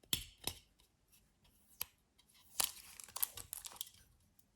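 Handling noise: a few separate sharp clicks and taps, then a quick run of small clicks and rustling about two and a half seconds in.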